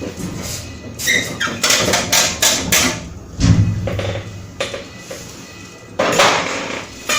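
Knocks, clicks and metallic clatter from handling the steel case and internal parts of an HP ProLiant ML350 Gen9 tower server as it is opened, with a heavier thump about three and a half seconds in.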